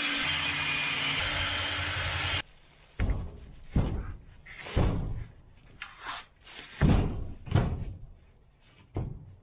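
A power drill runs steadily for about two and a half seconds, driving a screw into a plywood subfloor, then stops. A series of wooden thumps and knocks follows as a plywood sheet is handled and bumped against the wall framing.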